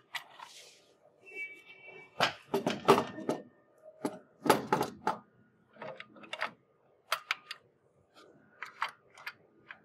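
Conveyor impact bar being set into the metal frame of a slider/impact bed: several clusters of sharp clanks and rattles as it is lowered and shifted into place, the loudest about 3 and 4.5 seconds in.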